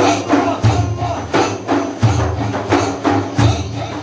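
Frame drums with jingles beating a steady rhythm. A deep heavy stroke lands about every two-thirds of a second, with lighter strokes between.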